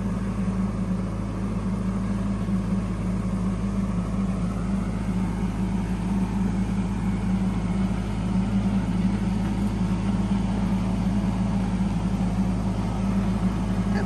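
Kubota tractor engine running steadily, a constant low hum without change in pitch.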